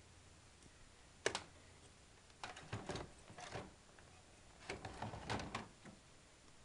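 Plastic parts inside an opened Apple LaserWriter Select 360 laser printer being handled, clicking and rattling. There is one sharp click about a second in, then two clusters of clattering clicks.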